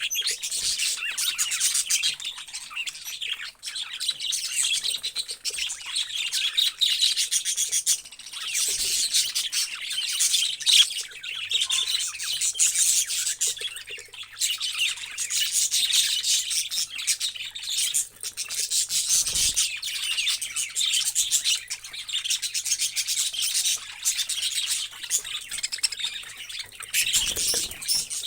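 Many parrots chirping and chattering at once: a dense, unbroken wash of overlapping high-pitched calls.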